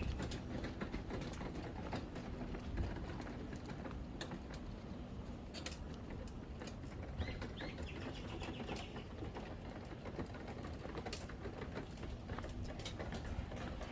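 Outdoor ambience: a steady low rumble with scattered clicks, and a brief bird call about seven to nine seconds in.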